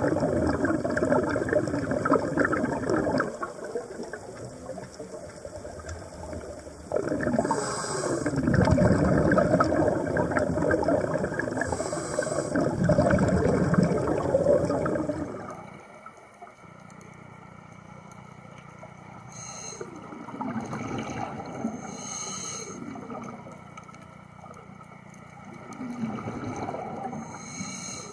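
Scuba diver's regulator breathing underwater: exhaled bubbles gurgling in long bursts with quieter gaps between, the whole turning much quieter about halfway through.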